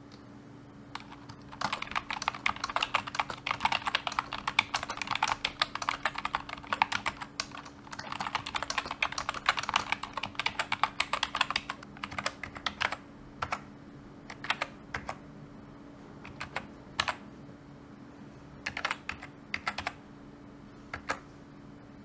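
Typing on a Langtu membrane gaming keyboard. There are two runs of fast, dense keystrokes, then slower, spaced single key presses for the second half.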